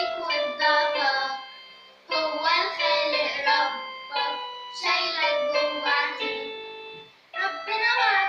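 A girl singing a song in Arabic with instrumental accompaniment, in phrases that each swell and fade before the next begins.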